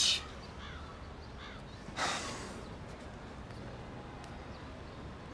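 A man's single short sniff, a sharp breath in through the nose lasting about half a second, about two seconds in, against a faint steady background hiss.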